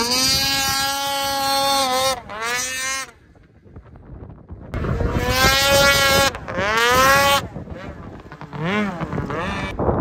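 Snowmobile engine revving hard in bursts as the sled is throttled up into wheelies, the whine climbing in pitch under throttle and dropping as it lets off. It eases off about three seconds in, comes back with two hard surges around the middle, then gives a short blip near the end.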